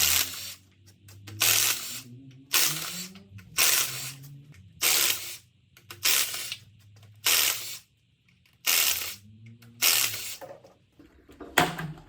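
Hand ratchet working bolts loose on an engine's intake manifold. It makes about ten short, even strokes of clicking at a regular pace, roughly one a second.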